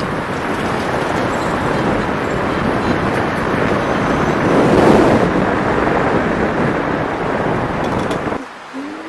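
Wind rushing over the microphone with road noise while riding an electric kick scooter, a steady rough rush with no motor tone standing out. It drops away sharply a little before the end.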